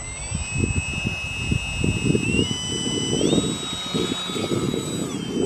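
Small electric motor and propeller of a 220-gram foam model Bellanca Decathlon running on the ground: a whine that rises as the throttle opens, steps up in pitch twice, then drops a little near the end, over a gusty low rush.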